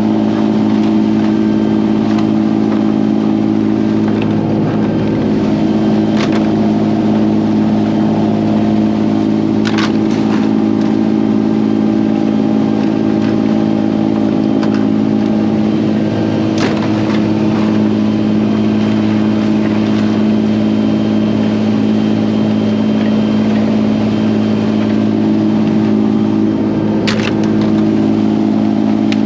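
Boat engine running steadily at cruising speed, a constant loud drone that does not change, with a few sharp clacks of scallop shells being handled.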